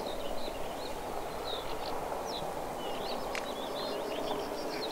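Small birds chirping and twittering over a steady outdoor background hum, with one sharp click a little over three seconds in.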